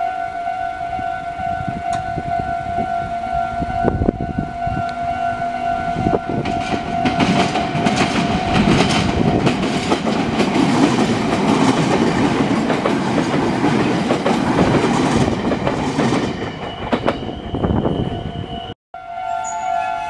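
Level-crossing warning bell ringing in a fast, even repeat while a red Meitetsu electric train runs over the crossing. The train's wheel and rail noise is loudest from about 7 to 16 seconds. The bell stops about 16 seconds in, the sound drops out for a moment near the end, and the bell then rings again.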